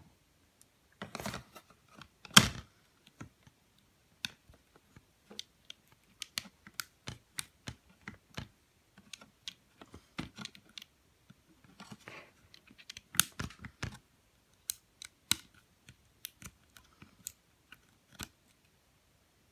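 Hands handling an opened tablet: irregular small clicks and taps of hard plastic, with a sharper click about two seconds in and another about thirteen seconds in.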